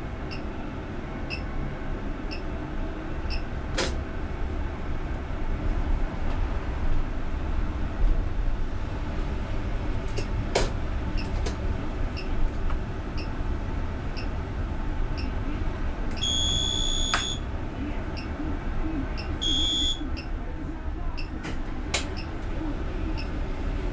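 UTTZ-6241.01 (MAZ-203T) trolleybus on the move, heard from the driver's cab: a steady low running rumble with a light regular ticking, a little faster than once a second. A few sharp clicks, and two electronic beeps a few seconds apart past the middle, the first about a second long and the second shorter.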